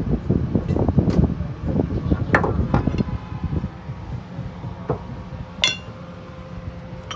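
Metal hand tools and a steering tie rod knocking and clinking as they are worked loose and handled, with a dense run of knocks in the first few seconds. About five and a half seconds in, a steel part set down on the floor rings once with a sharp clink.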